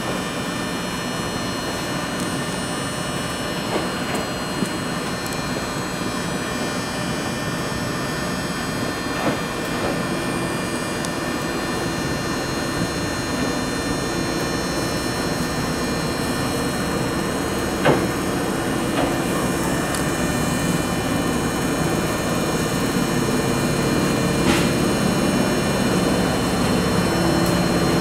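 Steady hum of a parked electric limited-express train's equipment, with a Kintetsu red-and-white commuter train approaching and pulling into the platform, growing louder over the last part as its motor tones come in. A few short clicks sound along the way.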